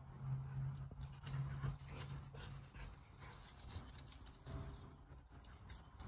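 American bulldog sniffing and stepping through dry fallen leaves on grass: faint scattered rustles and crunches, over a low steady hum that weakens after about two seconds.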